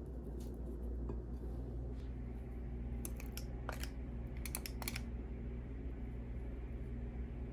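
A few light clicks and taps of baking utensils over a steady low hum, bunched together midway.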